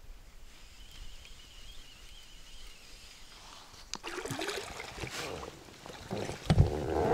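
Small boat on water: a few quiet seconds, then from about four seconds in water splashing and sloshing around the hull with knocks and clatter, louder thumps near the end.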